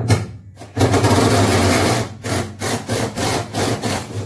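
Cordless power driver running in bursts: a short one, then one lasting about a second, then several shorter pulls of the trigger, as bolts are worked at the floor of a car body.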